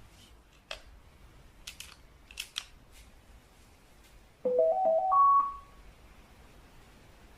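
A few sharp clicks, then a Samsung CW-21Z503N television's power-on chime: a short electronic melody of quick notes stepping upward and ending on a held higher note, about a second long.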